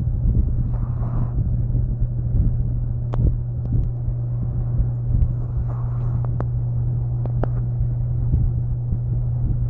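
A Shih Tzu snoring in her sleep, with a soft snore about every five seconds (twice here), over a steady low hum and a few light clicks.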